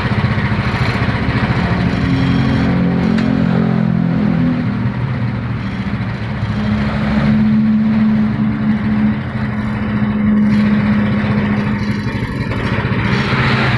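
Small motorcycle engine running, its engine speed shifting up and down a few times.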